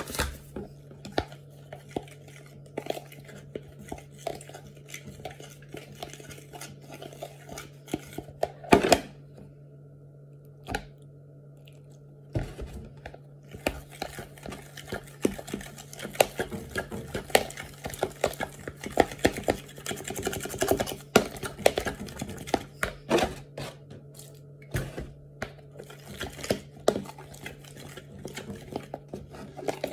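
A metal spoon clinking and scraping in a plastic tub as something is mixed, in scattered taps at first and then a long run of quick taps through the middle. A steady low hum runs underneath.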